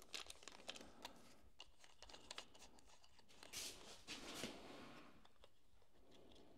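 Faint clicks and rustles of hands working small parts: a tiny nut and thin wires being fitted onto the terminal studs of a small gauge. A short, louder rustle comes about four seconds in, and then it goes nearly quiet.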